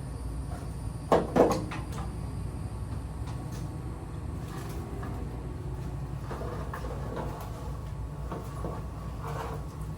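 Two sharp knocks close together about a second in, then light scattered clattering, over a steady low hum: the sounds of handling and fitting a lattice panel with brackets and a screwdriver.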